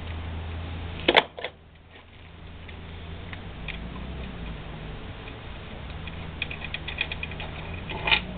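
Metal tools and parts being handled on a moped frame. There is a sharp double clank about a second in, a run of light ticks later on, and another clank near the end, over a steady low hum.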